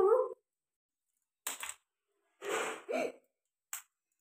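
Four short, separate cracks and crunches as the legs are snapped off live crabs by hand.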